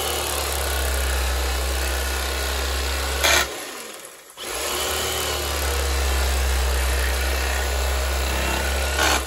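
Electric carving knife running, its serrated twin blades sawing through a roast pork joint with a steady motor buzz. It stops with a click a little over three seconds in, starts again about a second later, and stops with another click near the end.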